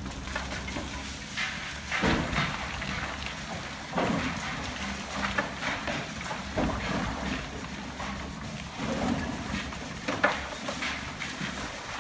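High-reach demolition excavator's engine running steadily while it breaks concrete out of a silo wall. Irregular crashes and rattles of concrete breaking and falling come every second or two, the loudest about ten seconds in.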